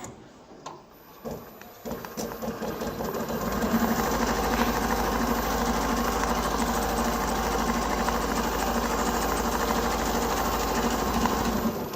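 Richpeace perforation machine running, its needle punching holes in rapid, even strokes. A few clicks come first, then it runs up to speed within about two seconds, holds steady, and stops just before the end.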